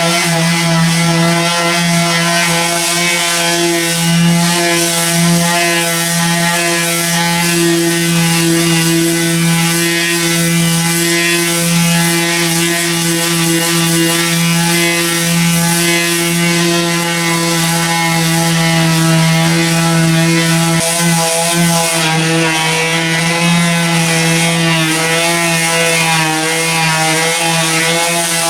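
Power sander running steadily on car bodywork, rubbing back old paint. It gives a constant motor hum with a hiss of abrasive on paint.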